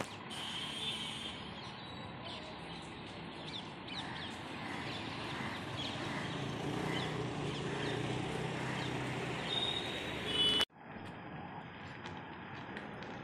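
Street traffic ambience: motorcycle and scooter engines running, with the low engine sound building up past the middle and short high chirps over it. The sound cuts off abruptly about ten and a half seconds in, then resumes as quieter outdoor ambience.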